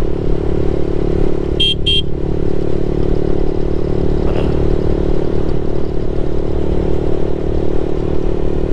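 Motorcycle engine running at a steady cruising speed, mixed with wind rush, and two short horn beeps about one and a half seconds in.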